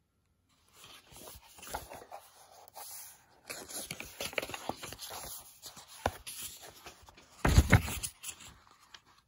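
A book page being turned by hand: paper rustling and sliding, with a louder handling bump near the end.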